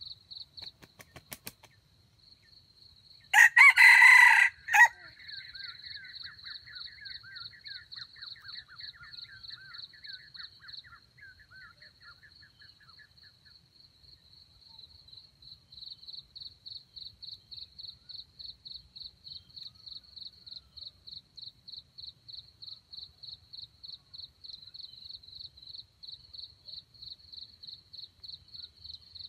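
A red junglefowl rooster (wild chicken) crows once, loudly, about three seconds in. Behind it an insect keeps up a steady, rapidly pulsing high chirp.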